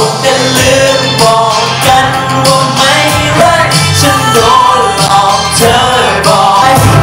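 Live hip-hop performance: male vocalists on handheld microphones over an amplified backing track.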